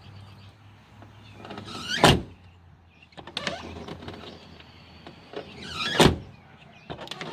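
1999 Jeep Cherokee XJ door opened with its freshly adjusted push-button exterior handle and slammed shut twice, about four seconds apart, with smaller latch and handle clicks in between.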